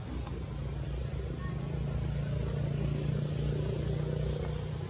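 Low, steady engine hum of a motor vehicle running nearby, swelling a little louder about two seconds in.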